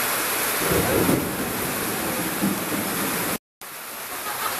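Heavy rain pouring down, a steady dense hiss of rainfall. It cuts out for an instant about three and a half seconds in, then goes on a little quieter.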